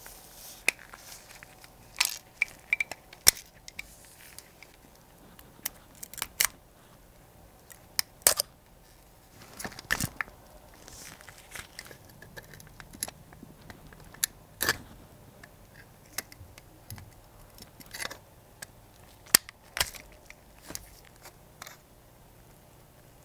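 Sharp, irregular clicks, taps and scrapes of pliers, tweezers and gloved fingers on a rusted model car's metal body and plastic interior parts as it is being taken apart.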